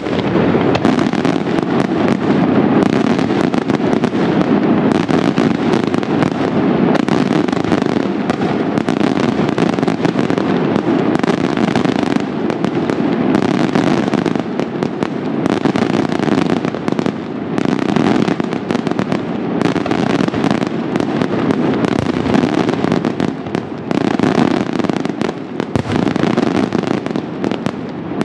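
Italian daytime fireworks (diurno): a dense, unbroken barrage of rapid small bangs and crackling, with no pause.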